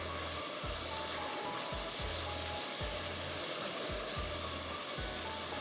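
Onions and ground garlic frying in oil, a steady sizzle.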